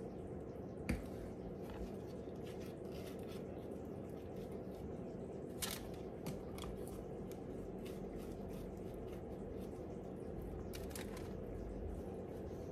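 Table knife scraping buttery spread onto slices of bread, soft repeated scrapes with a few sharper clicks, over a steady low hum.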